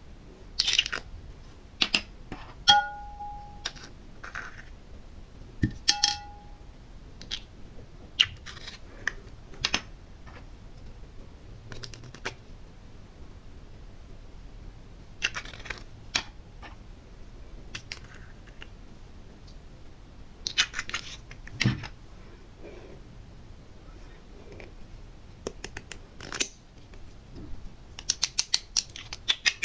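Small decorations and containers being handled and dropped while decorating slime: scattered clicks, taps and crinkles, with two short ringing clinks about three and six seconds in and a quick rattle of small pieces near the end.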